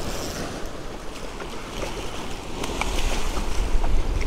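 Wind buffeting the microphone over lapping water, with a hooked redfish splashing at the surface. The rumble and splashing grow louder about halfway through.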